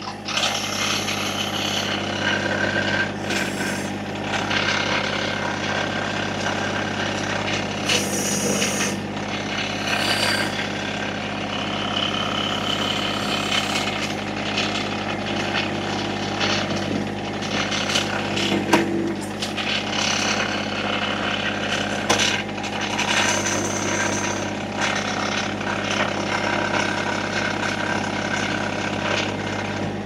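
Massey Ferguson sub-compact tractor's diesel engine running steadily while its backhoe digs, with irregular clanks and scraping of the bucket in dirt and stones, and now and then a brief whine.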